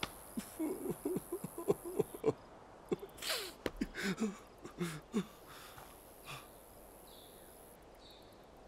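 Short non-verbal sounds from several people's voices, with a sharp breathy burst about three seconds in. These give way to faint steady room tone from about six seconds on.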